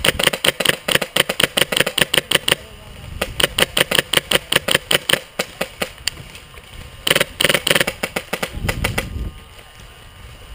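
Airsoft guns firing on full auto: rapid strings of sharp shots at about ten a second, in several long bursts with short pauses between.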